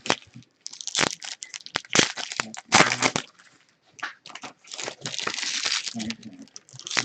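Card-box packaging being handled and opened: irregular crinkling and tearing with a few sharp cracks, and a brief lull a little after the middle.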